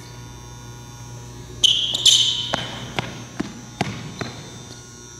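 Sneakers squeaking sharply on a gym floor twice in quick succession during a spin move, followed by a run of short thuds about every half second as the feet land.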